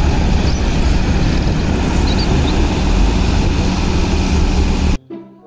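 Concrete mixer truck's diesel engine running as the truck pulls away, a steady low rumble with outdoor noise. It cuts off suddenly about five seconds in, and a few notes of music start.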